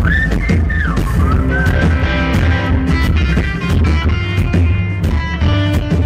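Live rock band playing, with electric guitar, bass and drums. Over it, a whistled melody glides through the first two or three seconds.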